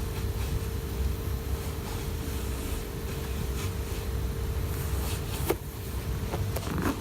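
Steady low mechanical hum of room noise with a constant mid-pitched tone running through it, and a couple of faint clicks in the last couple of seconds.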